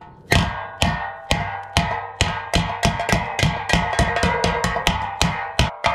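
A small hammer with a rounded face pounds a dented steel milk can wall against a steel plate, hammer-and-dolly style, to knock out dents. The blows come quickly, about four a second, and each one rings metallically.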